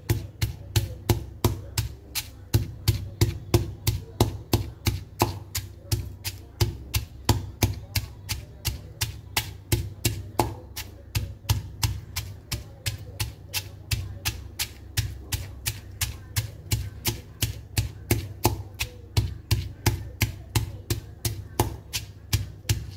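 Pestle pounding garlic, chillies and salt in a granite mortar, a steady run of thuds at about three strikes a second, crushing the base of a chilli paste.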